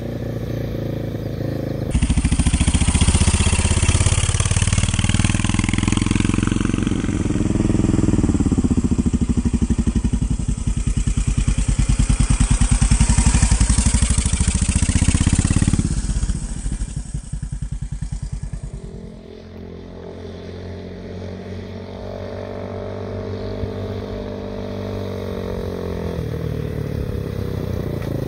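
Yamaha motorcycle engine of a homebuilt reverse trike running under way. It is loud and close from about 2 seconds in, with its speed rising and falling, and fades around 16 seconds. Near the end it is farther off, its pitch climbing steadily as it accelerates.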